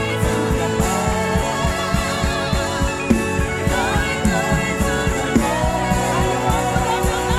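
Live gospel worship music: a band playing with a steady drum beat under sung vocals.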